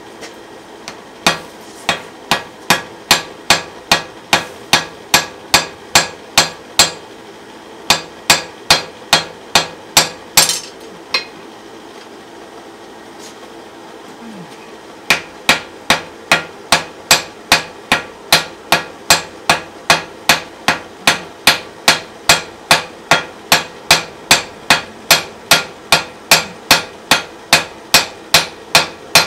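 Hand hammer blows on a wrought iron hammer head at welding heat, lying on the anvil, setting the forge weld of its fluxed steel face. Sharp, even strikes at about two a second, in runs broken by a pause of a few seconds near the middle.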